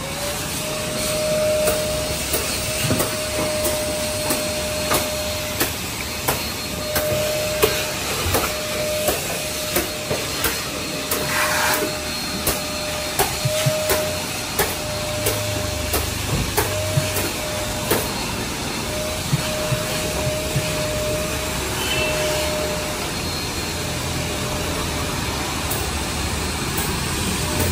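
Car-wash equipment running: a motor whine that rises as it starts up and settles to a steady pitch, over a continuous loud hiss, with scattered clicks and knocks.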